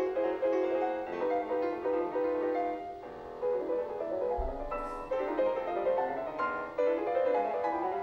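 Piano music: an unbroken run of single notes and chords with a brief lull about three seconds in.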